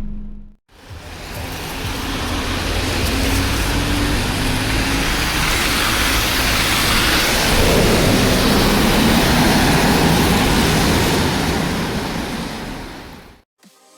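ADL Enviro400H City hybrid double-decker bus accelerating, a whine rising in pitch over its running noise. The noise swells through the middle and fades away near the end.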